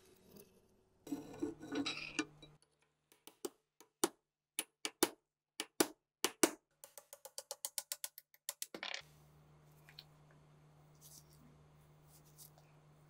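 Metal-on-metal clicks and taps from a screwdriver worked against the rusted receiver of an MG34 machine gun. First a short scraping rattle, then a series of separate sharp taps, then a quick run of clicks about eight a second that ends in a louder click.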